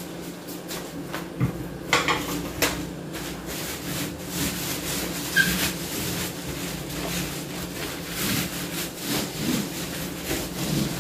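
Plastic-wrapped cardboard box being handled and wiped down: plastic rustling and rubbing, with scattered knocks and scrapes.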